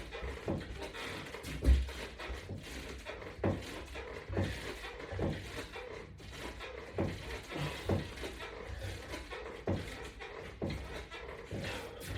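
Dull thumps and knocks, irregular, about one a second, over a faint steady hum.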